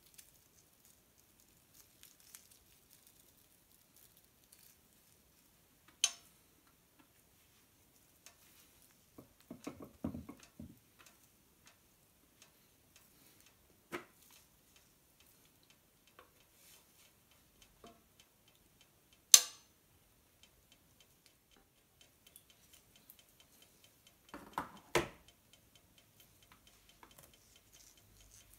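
Tabletop handling noises from utensils and food being moved around: a few isolated sharp clicks and taps, the loudest about two-thirds of the way through, a short run of small taps and rustles about ten seconds in, and a few knocks near the end, with long quiet gaps between them.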